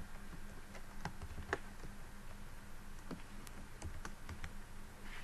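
Typing on a computer keyboard: irregular single key clicks with uneven gaps, over a steady low hum.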